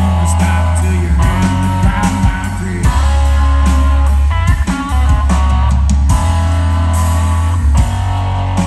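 Live band playing an instrumental passage with no singing: electric guitar lines over a steady bass guitar and a drum kit.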